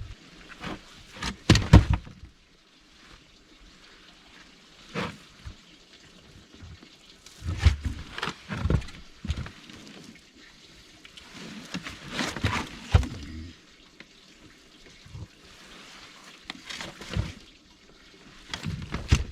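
Water splashing and sloshing in irregular bursts, with scattered sharp knocks, about six clusters spread across the stretch.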